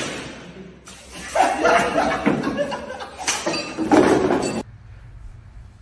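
Men laughing and talking over one another, with a sharp knock right at the start; the laughter stops about a second before the end.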